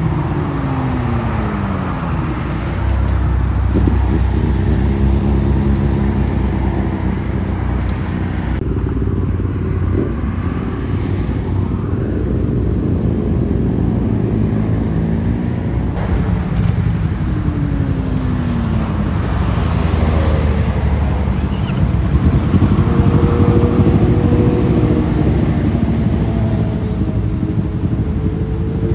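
BMW S1000RR-family inline-four superbikes with Akrapovic exhausts riding past on a highway, several engine notes falling in pitch as each one goes by, over a steady low rumble of engines and traffic.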